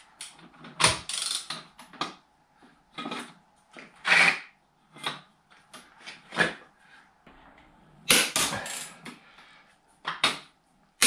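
Ratchet of a long torque wrench on a car's front hub nut, making a string of short ratcheting strokes with pauses between as the nut is tightened toward 200 Nm.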